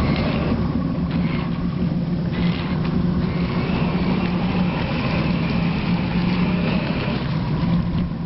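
Steady low drone of a boat engine running, with a faint high motor whine in the middle stretch.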